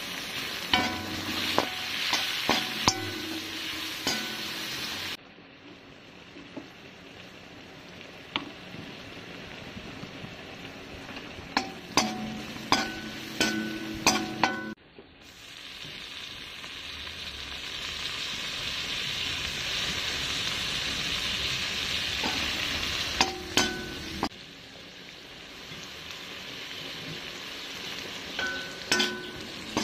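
Onions and vegetables sizzling as they fry in oil in a metal wok, with a metal skimmer spoon clinking and scraping against the wok in clusters of sharp ringing strikes as it stirs. The sizzle changes level abruptly a few times.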